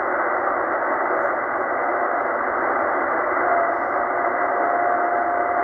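Tecsun H-501X shortwave receiver's speaker giving a steady hiss of band noise on 7268 kHz lower sideband, with no voice on the channel. About three and a half seconds in, a steady whistle comes in and holds.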